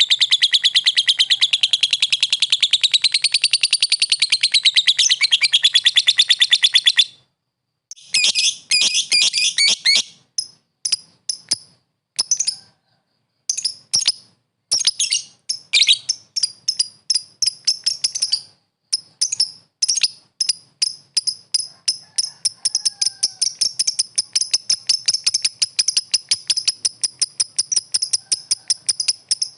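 Lovebird chattering call: a long, rapid, shrill trill that wavers in pitch for about seven seconds. After a brief break come uneven bursts of sharp chirps, which settle into a fast, steady run of high chirps.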